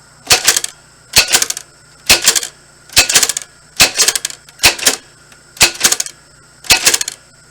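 We R Memory Keepers typewriter keys struck one at a time, about one letter a second, each strike a sharp clack made of several quick clicks, as a word is typed out slowly.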